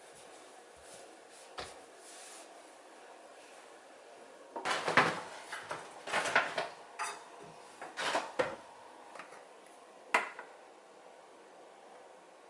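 Kitchenware being handled: a run of light knocks and clinks, like dishes, utensils or a drawer, starting about halfway through, with one last clink a couple of seconds later.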